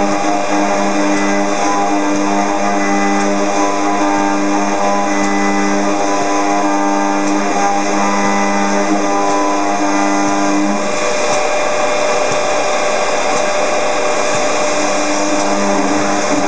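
Robot-held FIMEC milling spindle cutting aluminium: steady, loud machining noise with two low steady tones that drop out about eleven seconds in and return near the end.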